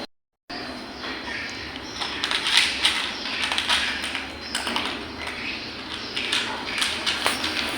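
A cat eating, its chewing and crunching giving quick, irregular clicks and crackles. The sounds come after a brief gap at the start and grow busier about two seconds in.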